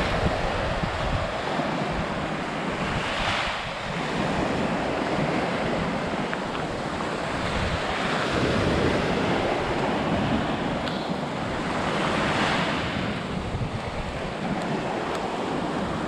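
Small sea waves breaking and washing up a shell-strewn sandy shore, with wind rumbling on the microphone. The surf swells louder about three seconds in and again around twelve seconds.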